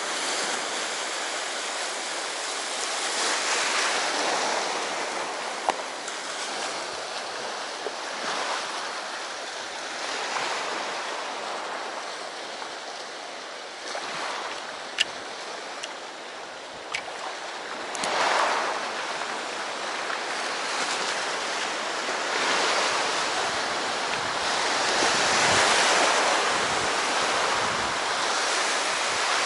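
Sea waves breaking and washing up on the shore, the surf swelling and falling back every few seconds, with a few sharp clicks.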